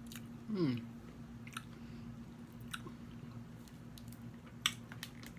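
A person chewing food close to the microphone, with wet mouth clicks now and then and one sharper click near the end, over a steady low hum.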